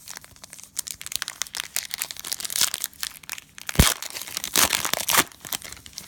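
Cellophane wrapper of a basketball card cello pack crinkling and tearing as it is ripped open: dense, fast crackling, with one sharp knock nearly four seconds in.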